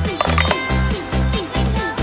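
Background electronic dance music with a steady bass beat, about two beats a second.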